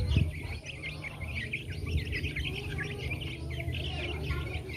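A flock of young chickens peeping constantly as they feed, many short high chirps overlapping, over a low steady rumble.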